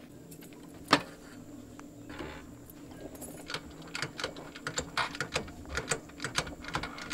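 Irregular metallic clicks and taps from hands working on a motor scooter's front end, with one sharp knock about a second in and a quicker run of clicks, two or three a second, in the second half.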